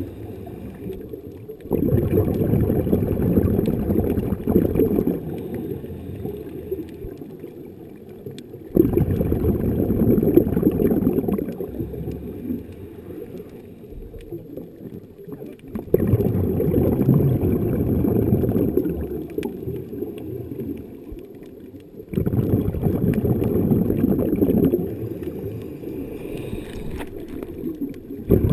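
Underwater breathing through a Snuba diving regulator: each exhaled breath comes out as a low, bubbling rush lasting a few seconds, about every seven seconds, with quieter stretches between breaths.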